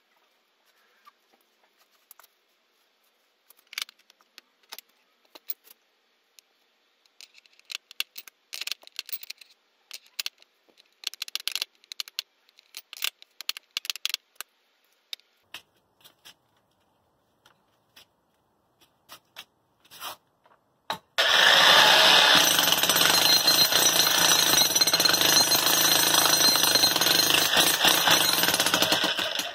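Scattered light scraping and clicking for about twenty seconds. Then an electric jackhammer starts and runs steadily and loudly, its chisel bit pounding into the sand and concrete around a metal fence post bracket, and it stops just before the end.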